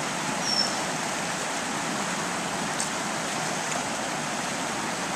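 Steady rush of flowing shallow river water.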